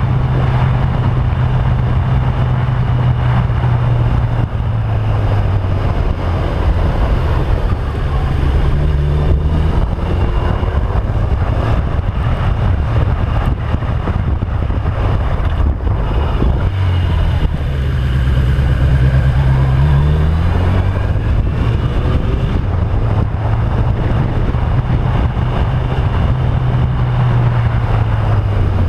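Motorcycle engine running under way, heard from the bike itself, with wind rushing over the microphone. The engine note falls and climbs again a couple of times as the rider eases off and accelerates through the bends.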